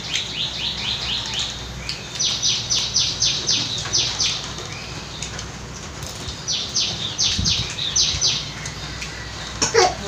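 A bird calling in quick runs of high, evenly spaced chirps, about four a second, three runs of roughly two seconds each. A short, louder cry comes near the end.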